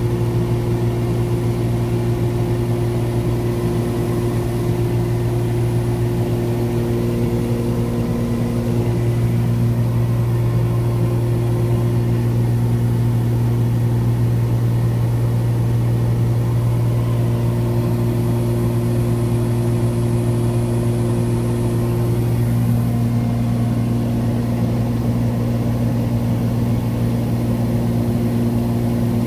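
Cabin drone of the Cessna 340's twin turbocharged six-cylinder piston engines and propellers in cruise flight, heard from inside the cockpit. A steady, loud hum, with a few higher tones in it that fade in and out.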